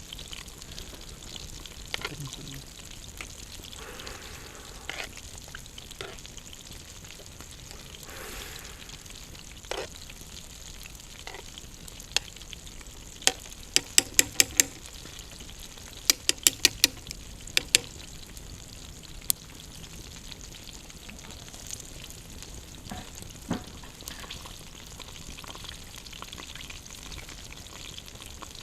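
Campfire hissing steadily with scattered sharp crackles, and two quick runs of loud snapping clicks about halfway through.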